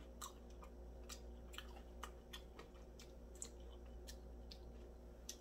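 A person chewing a bite of crispy fried chicken drumstick with a potato-starch crust, mouth closed: faint, irregular crunches and mouth clicks.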